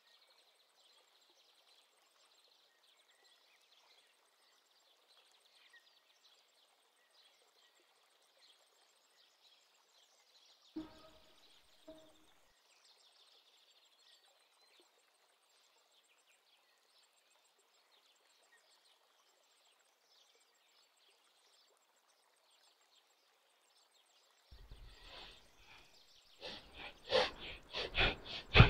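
Near silence with a faint background hiss and two small knocks, then near the end rapid, forceful in-and-out breaths through the nose begin: bhastrika (bellows breath) pranayama, about three breaths a second and getting loud.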